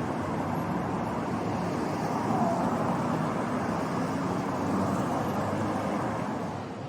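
Steady city street ambience dominated by the rush of passing road traffic.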